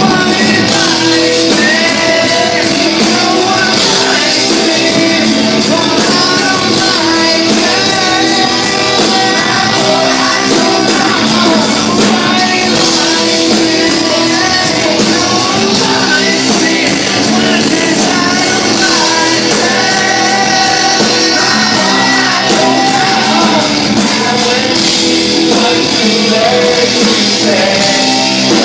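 Live rap-rock band playing at full volume, with sung and shouted vocals over the PA and a steady drum beat, heard from within the audience.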